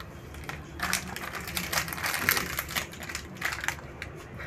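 Plastic snack wrapper of an Oreo biscuit packet crinkling as it is handled, a dense run of crackles from about a second in until shortly before the end.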